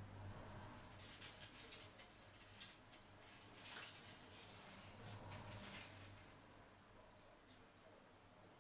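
A cricket chirping in short high bursts, about two a second, starting about a second in and dying away after about six seconds. Faint scattered clicks from the bearded dragon's claws scratching at the vivarium glass run beneath it.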